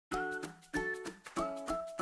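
Light background intro music: short chords, each starting sharply and fading, a few each second.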